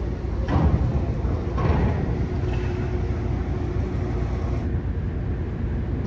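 Steady low rumble aboard the car ferry Kennewick as it sits at the dock during loading, with two brief louder swells in the first two seconds.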